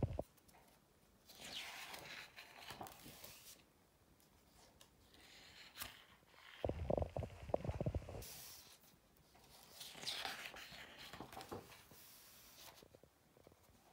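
Pages of a large photography book being turned and smoothed flat by hand: several faint spells of paper rustling and sliding, with a few low handling thumps about seven seconds in.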